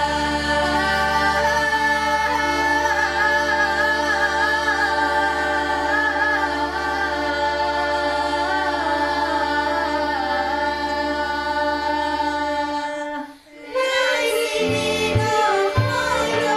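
Girls' folk choir singing a Bulgarian Shop folk song: long held notes under a wavering, ornamented melody line. There is a short break about thirteen seconds in before the next phrase begins.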